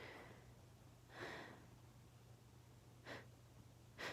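Faint breaths and short, sharp sniffing intakes through an itchy, allergy-irritated nose as a sneeze builds up without coming: one longer breath about a second in, then two quick sniffs near the end.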